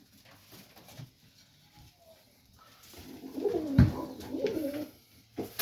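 Domestic pigeon cooing about three seconds in, a wavering call lasting a couple of seconds, with a single loud thump partway through it.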